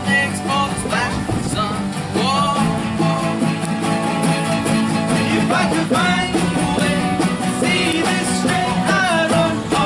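Rock band playing live, a singer over guitars.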